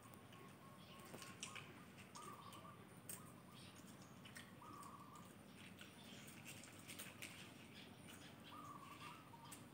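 Near silence, with faint scattered clicks from a macaque picking nuts out of a plastic tray and a short, faint whistled note heard three times.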